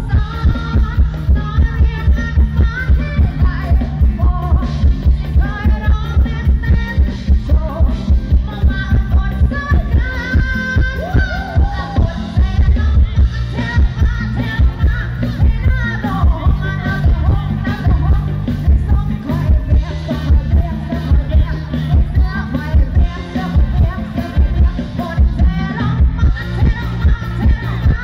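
Live band music played loud through a stage sound system, with a heavy steady drum beat of about two beats a second under a woman singing the melody into a microphone.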